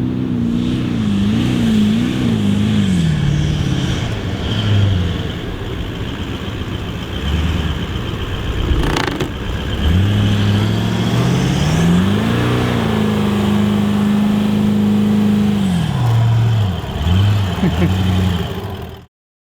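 Toyota LandCruiser 200 Series engine revving up and down under load while driving in soft sand, with one sharp knock about halfway through. The sound cuts off suddenly near the end.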